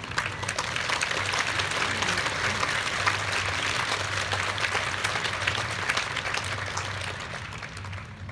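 Theatre audience applauding a ballet dance, a dense patter of many hands clapping that thins out and dies away near the end.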